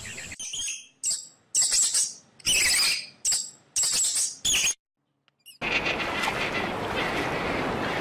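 A white mouse squeaking in a series of about six short, high-pitched squeaks. After a brief silence, a steady scratchy rustling noise begins past the halfway point.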